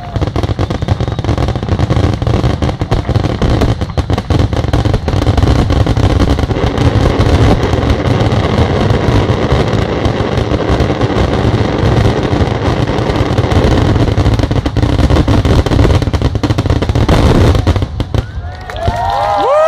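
Dense, continuous barrage of firework bursts and bangs in rapid succession, stopping about 18 seconds in. Near the end, gliding whistles start up.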